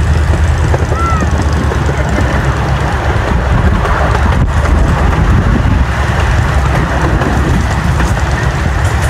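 Miniature park train riding along its track, a steady rumble of wheels on the rails heard from an open passenger car.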